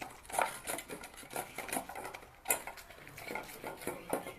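A dog's empty food bowl clattering and scraping on the floor as the dog carries and pushes it: a quick run of light knocks and clinks, with one sharper knock about halfway through.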